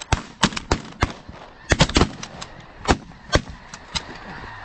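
Several shotguns firing a rapid, uneven volley of about a dozen shots at incoming geese, some shots bunched close together.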